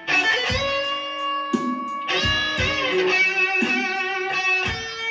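Electric guitar playing a slow-blues lead, with sustained notes and string bends that swing up and down in pitch. Steady drum beats sound behind it.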